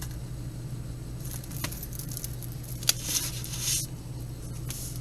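Close handling noise from jewelry and its packaging: three short spells of rustling with a couple of sharp small clicks, the loudest about three seconds in, over a steady low hum.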